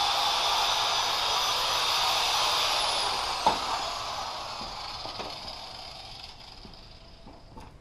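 Corded angle grinder running at full speed, then switched off about three seconds in and spinning down with a falling whine that fades over several seconds. A single sharp knock comes about three and a half seconds in.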